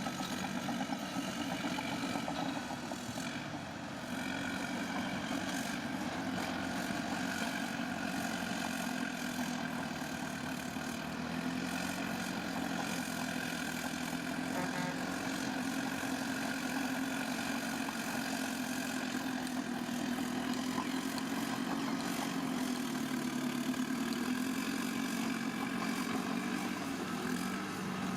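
Heavy diesel engine of earthmoving machinery running steadily, its pitch shifting slightly as the load changes, with a brief drop in loudness about four seconds in.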